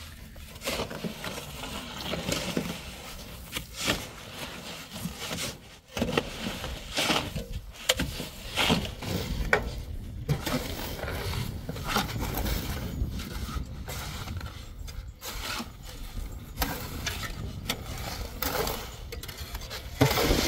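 Steel shovels scraping along the metal bed of a pickup truck and scooping loose sand and gravel, in a run of irregular scrapes and knocks.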